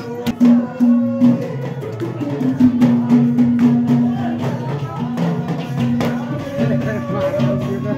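Instrumental Indian devotional bhajan music: an Indian banjo (bulbul tarang) plays sustained melody notes over a steady rhythm of deru drum and ghada clay-pot strokes.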